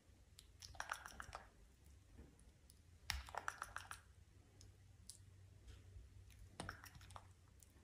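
Monkey nibbling a person's fingernail with its teeth: faint runs of quick, sharp clicks, three bursts of about half a second to a second each.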